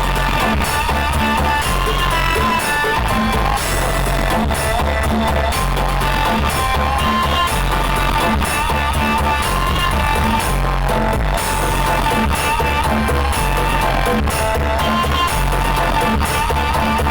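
Music played loud through a large BCD Audio sound system during a sound check, with a heavy, pounding bass under a melody.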